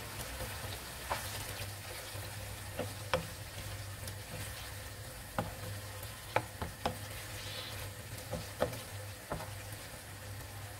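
Chicken curry sizzling in a nonstick frying pan as a wooden spoon stirs it, with sharp irregular taps of the spoon against the pan over a steady frying hiss.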